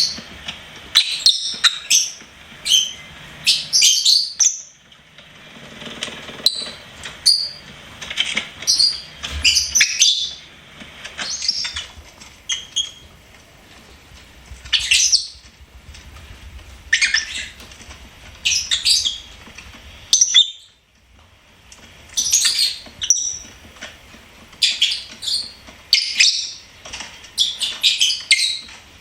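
Lovebirds chirping: bursts of rapid, short high-pitched chirps, with brief pauses between the bursts.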